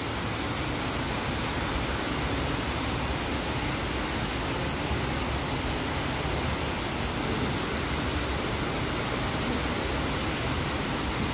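Steady rushing of a waterfall pouring over artificial rockwork, an even wash of noise with no breaks.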